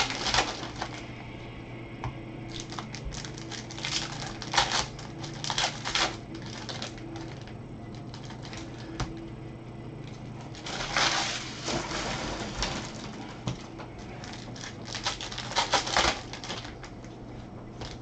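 Bowman baseball card-pack wrappers crinkling and tearing open and the cards being handled by gloved hands, in several bursts of crackling rustle. A faint steady low hum runs underneath.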